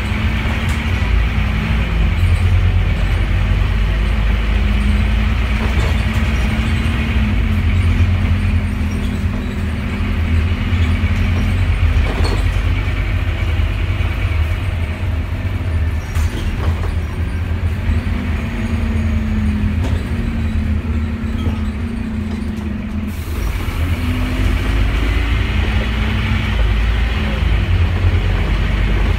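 Scania N230UD double-decker bus's nine-litre five-cylinder diesel heard from inside the passenger saloon on the move: a steady low rumble whose pitch rises and falls as the bus pulls away and slows, with body rattles and a few knocks.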